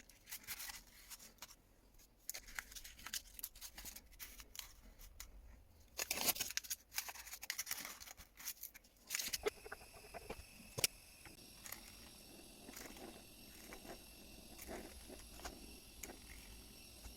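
Close-up handling of paper and sand: crinkling, rustling and scattered light taps and scrapes, busiest a little past the middle. A faint steady hiss comes in about nine seconds in and carries on under the odd click.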